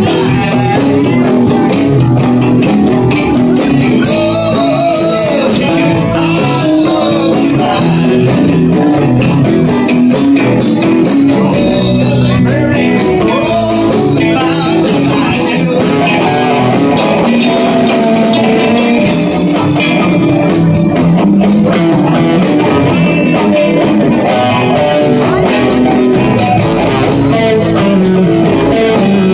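Live band playing a song on electric guitars, bass guitar and drums, loud and steady.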